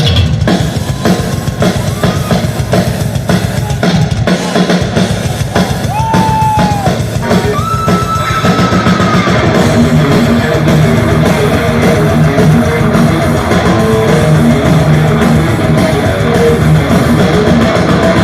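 Heavy metal band playing live, loud: a fast drum-kit pattern with a few sliding guitar notes partway through, then distorted guitars and bass fill in with the riff from about halfway.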